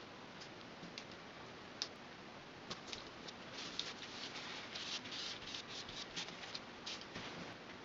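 Hands handling flattened barley straw strips on paper: a few light clicks, then a busy run of short scratchy rubbing and tapping sounds from about three seconds in until near the end.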